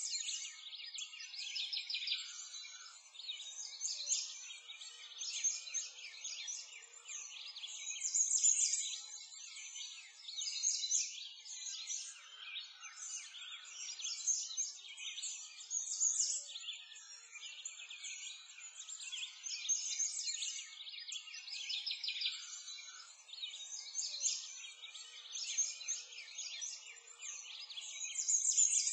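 A dense chorus of songbirds chirping and trilling, many overlapping calls with no low sounds beneath, swelling and fading every second or two.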